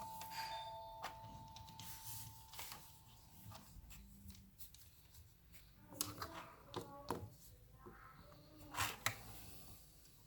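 A single clear ringing tone fading away over about three seconds. It is followed by a scatter of sharp clicks and taps from about six seconds in, the loudest near the end.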